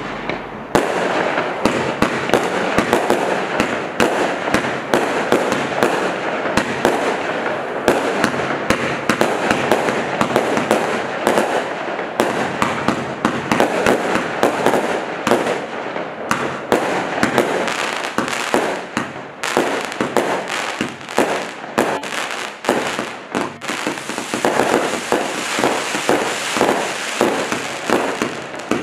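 Black Cat Nightscape firework cake firing in a continuous barrage: rapid launch thumps and bursts over a hissing, crackling wash. From about twenty seconds in the sharp separate reports come thicker and more distinct.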